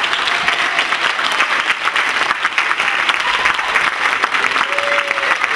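Theatre audience applauding: dense, steady clapping at the curtain call.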